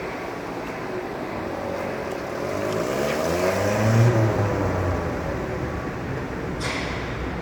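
Van engine, a Toyota Corolla engine swapped into a Suzuki APV, running and then revving up, its pitch climbing to a peak a few seconds in before falling back. A brief sharp noise sounds near the end.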